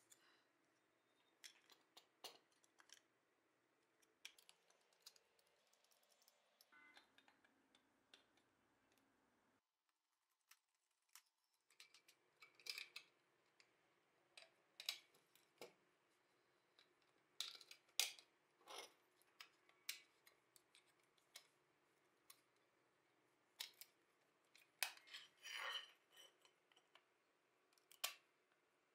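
Faint, scattered clicks and taps of small plastic toy-car body parts being handled and fitted together, with a short denser run of clicking and scraping a few seconds before the end.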